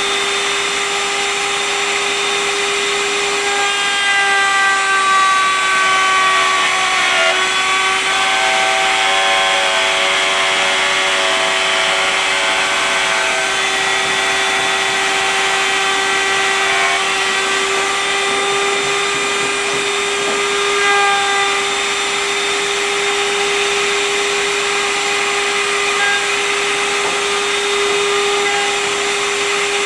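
Electric trim router running at high speed with a steady whine. For a stretch in the middle its higher tones waver and shift in pitch as the bit cuts the wood along the template.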